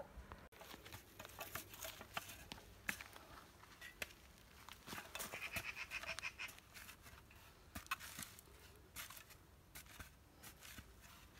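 Spade digging into dark garden-like soil: faint, scattered crunches and knocks as the blade cuts in and clods turn over and tumble.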